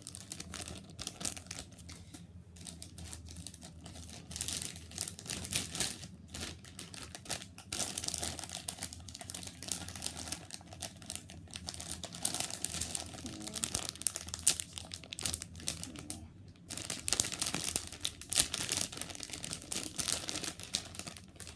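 Plastic packaging of a squishy toy crinkling as it is handled, in irregular bursts, loudest for a few seconds near the end.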